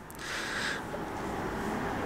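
Quiet, steady room noise, with a brief soft hiss in the first second.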